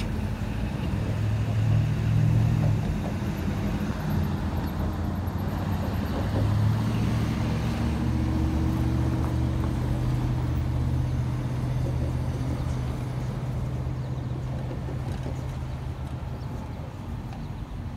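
Diesel locomotive engine running with a steady low hum as a passenger train pulls away, slowly fading over the last several seconds; road vehicles pass on the street near the start and near the end.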